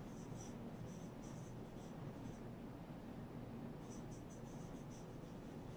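Whiteboard marker writing on a whiteboard, its tip squeaking faintly in short high strokes. The strokes come in two runs, with a pause of about a second between them.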